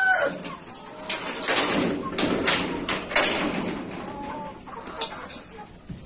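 Chickens clucking and squawking in short, sharp calls, with a rooster's crow trailing off right at the start.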